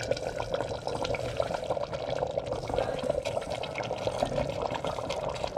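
Chicken simmering in its watery yogurt masala in a pressure cooker: a steady, dense crackle of small bubbles. Soaked rice is being tipped in from a bowl.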